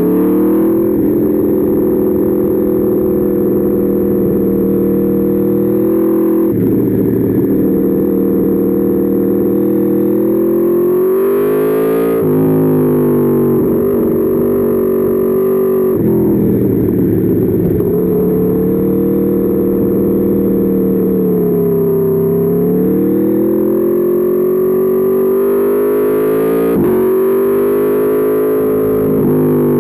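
Aprilia Tuono V4's V4 engine heard onboard at track pace, revs climbing through the gears with sharp drops at each shift about a quarter, two fifths, half and nine tenths of the way through, and a slower fall and pickup through a corner in between.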